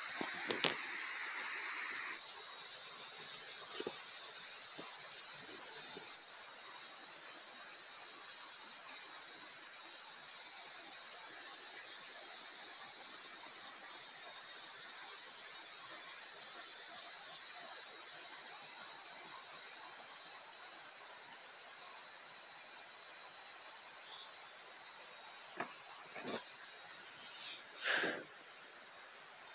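A dense, steady, high-pitched chorus of night insects in tropical forest. A faint crackle from the campfire comes in the first couple of seconds, and two light knocks of camp gear being handled come near the end.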